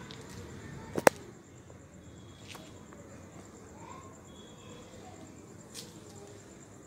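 A spatula stirring thin custard in a steel pot: low steady noise with a sharp double click about a second in and two fainter clicks later.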